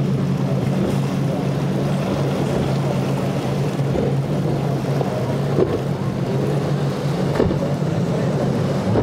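Twin Mercury 300 outboard engines on a Dakota 320SF center console running at speed with a steady drone, over the rush of water off the hull. There is a short splash near the end as the boat slams through a wave.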